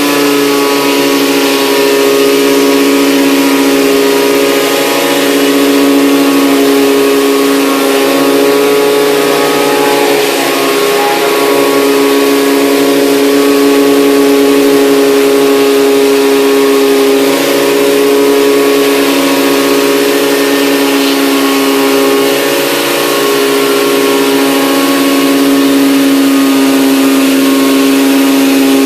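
Pressure washer running steadily, its engine-driven pump giving a constant drone while the rotary surface cleaner sprays water onto wet deck boards with a steady hiss.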